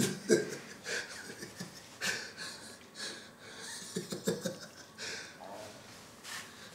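A man laughing in short, breathy bursts, about one a second.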